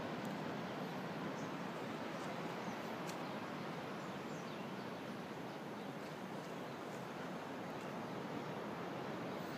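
Steady outdoor background noise, an even rushing hiss, with a few faint, short high chirps scattered through it.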